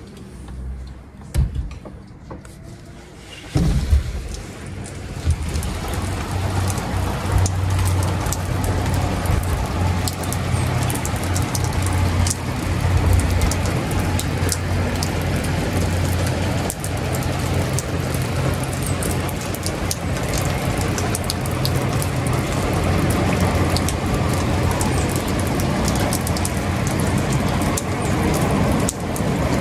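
Steady rain falling on wet paving and grass. For the first few seconds it is quieter, with a few sharp clicks; then a loud clack about four seconds in, after which the rain is loud and even.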